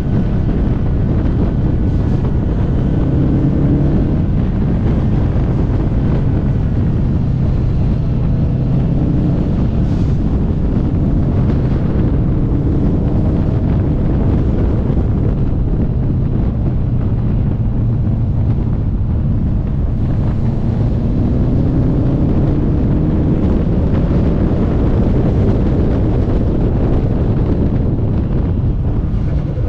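Car engine pulling and backing off, its pitch rising and falling repeatedly, under heavy wind noise on the microphone.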